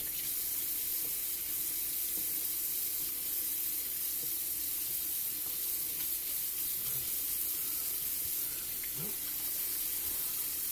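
Kitchen tap running steadily into a stainless-steel sink, the stream splashing over raw chicken gizzards as they are rinsed by hand.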